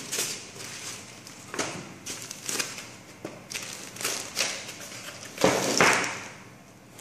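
Cardboard box, foam packing and plastic wrap rustling and knocking as an NVR recorder is lifted out of its box: a string of irregular rustles and light thumps, the loudest about five and a half seconds in.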